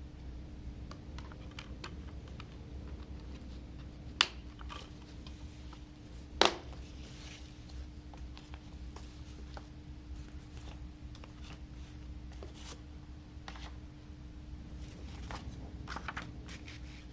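Light handling noises of a boxed product and its packaging: soft scrapes and ticks, with two sharp clicks about four and six seconds in, over a faint steady hum.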